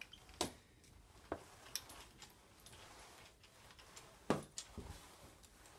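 A few light, sharp clicks and taps from a spray mop with a microfiber pad being pushed and turned on a hardwood floor, the loudest near the end, over a faint hiss.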